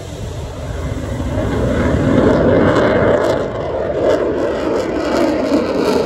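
The jet engine of an F-35C fighter, a single Pratt & Whitney F135 afterburning turbofan, as the jet flies overhead: a steady rushing roar that grows louder over the first two seconds and then holds.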